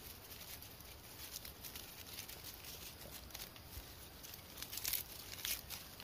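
Faint crackling and rustling of hands handling a small bird caught in a snare trap, a string of small ticks with a few sharper crackles about five seconds in.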